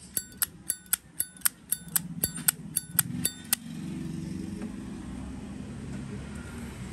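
Zippo lighter lid being snapped open and shut over and over: quick metallic clicks with a short ring, about four a second, stopping about halfway through. A low background hum is left after that.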